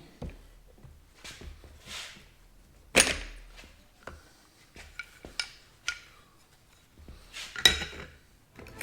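Metal parts and hand tools clinking and knocking as they are handled during assembly, with scattered clicks and two louder knocks, about three seconds in and near the end.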